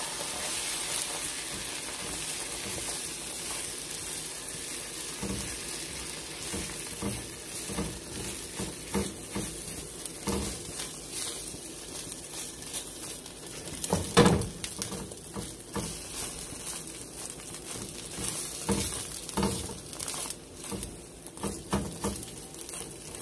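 Beaten egg sizzling in a hot nonstick frying pan while a spatula pushes and scrapes it around, firming it into a hard scramble. Short irregular scrapes run under the steady sizzle, with one louder knock about fourteen seconds in.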